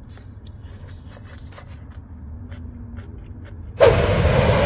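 Light clicks and scrapes of a spoon scooping rice. About four seconds in, the loud steady noise of an airplane engine cuts in suddenly and takes over.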